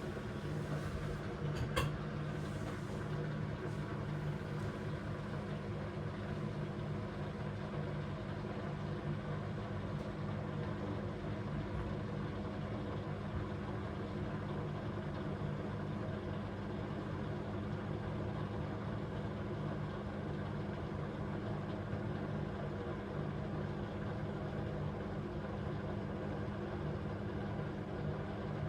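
AEG 8000 Series front-loading washing machine running with a steady motor hum, with a brief click about two seconds in.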